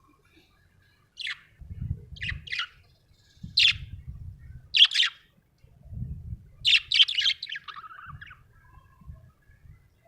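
Budgerigar chirping: five short, sharp chirps over the first five seconds, then a longer run of warbling chatter about seven seconds in that trails off lower.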